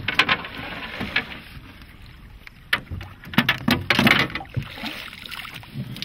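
Irregular knocks, thumps and short noisy bursts in an aluminium-hulled fishing boat while a small channel catfish is landed and handled, with the loudest cluster about three to four seconds in.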